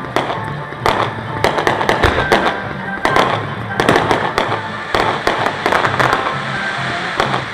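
Fireworks going off in quick succession: many sharp bangs and crackles overlapping one another, with music playing underneath.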